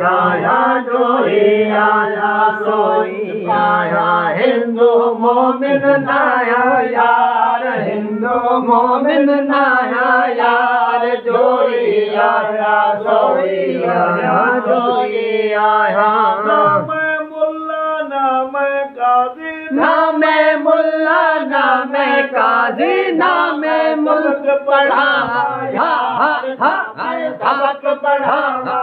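Men's voices singing a Sindhi Sufi kafi in a chant-like devotional style, with no instruments. A steady low drone sits beneath the singing and drops out about 17 seconds in.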